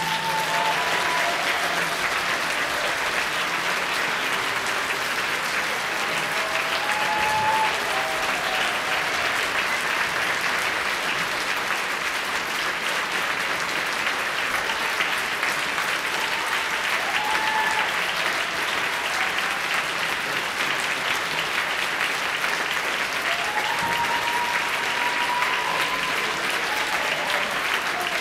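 Large audience applauding steadily after an orchestral and choral performance, with a few voices calling out above the clapping now and then.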